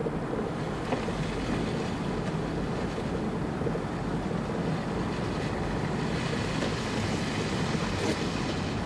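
Steady rumble of a car driving on a snow-covered road, with engine and tyre noise heard from inside the cabin.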